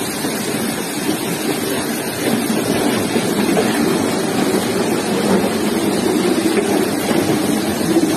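Flash-flood water rushing through a street: a steady, loud rush of running water that grows a little louder about two seconds in.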